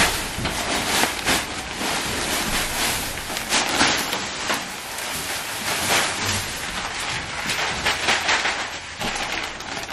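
A compressed bale of wood shavings emptied from its plastic wrap onto a wooden floor: a continuous dry rustling, pouring hiss with crinkling of the plastic bag.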